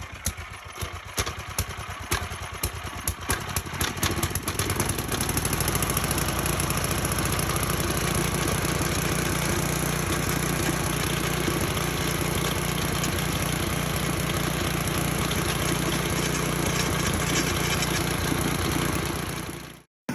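Ten-horsepower wood-chipper engine running, firing unevenly at first and then settling into a steady fast run after about five seconds, until the sound cuts off just before the end.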